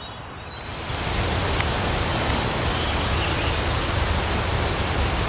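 Strong wind blowing steadily, with a rumbling low gusting underneath and a few faint bird chirps above.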